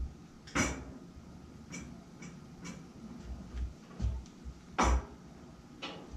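Sharp metallic knocks and clanks of a steel crossmember being worked into place in a truck frame: two loud strikes, about half a second in and near five seconds, with several lighter taps and dull bumps between.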